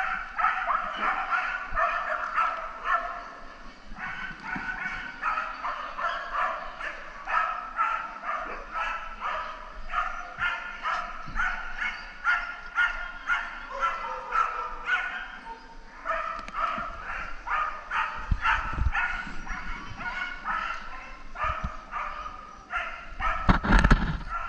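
A dog barking and yipping over and over, several sharp barks a second with hardly a break. Low thuds come in near the end.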